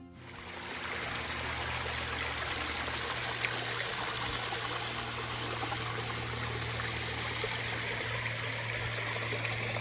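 Small woodland creek with a little waterfall: water running and splashing steadily over rocks, fading in over the first second.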